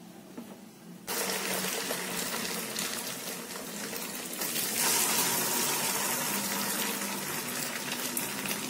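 Corn and egg batter frying in a little hot oil in a wok, a steady sizzle that starts suddenly about a second in and grows a little louder about halfway through.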